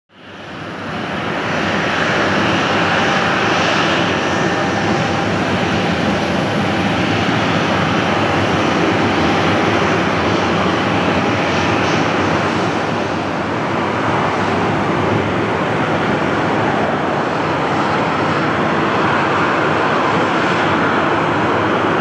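CFM56-7B turbofan engines of a Boeing 737-800 running steadily as the airliner taxis past, a continuous jet hiss and rumble that fades in over the first two seconds.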